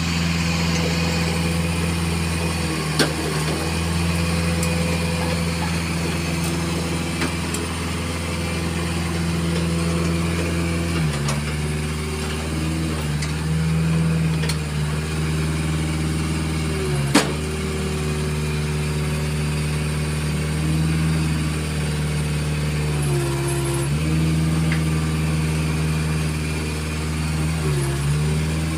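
Diesel engine of a Komatsu PC40MR-2 mini excavator running steadily as the machine tracks and manoeuvres. Its note sags briefly several times under load. Two sharp clanks come about 3 seconds and 17 seconds in.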